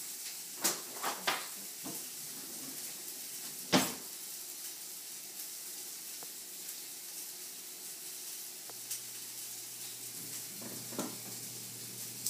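Food sizzling steadily as it fries, with a few sharp knocks from kitchen utensils; the loudest knock comes about four seconds in.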